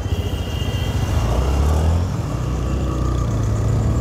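TVS Raider 125's single-cylinder engine running under way, its note rising briefly about a second in and then settling, with wind noise over the helmet microphone.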